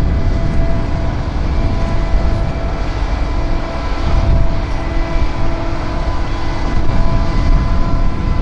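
Aircraft engine running: a loud, uneven rumble with several steady held tones above it. The lowest tone drops out about two-thirds of the way through.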